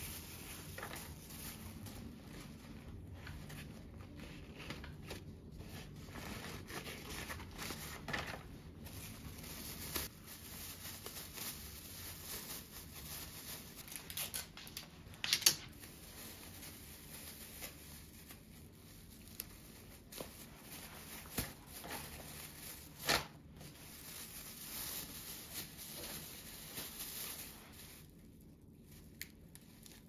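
Plastic packaging crinkling and rustling as a stack of folded Kleenex paper towels is unwrapped and handled, with a couple of sharper crackles along the way.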